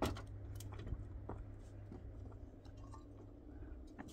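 Hollow clay blocks clinking and knocking against one another as they are set down and stacked: one sharp clink right at the start, then a few lighter knocks, over a steady low hum.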